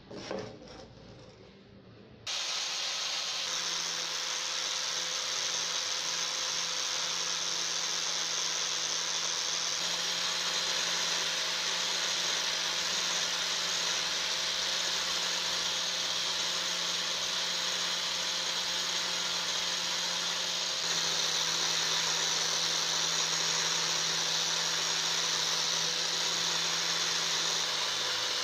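Angle grinder running with a red polishing pad, buffing the steel blade of a pruner clamped in a vise: a steady motor whine over a hiss of the pad on the metal. It starts about two seconds in, after a brief quieter moment.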